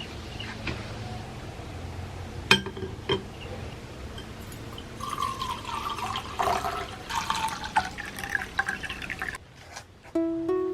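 A few light knocks, then liquid being poured into a container for about four seconds. Plucked-string music starts near the end.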